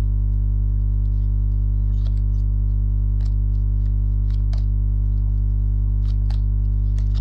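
Ambient background music: a steady low drone that holds unchanged, with a few faint short clicks scattered through it.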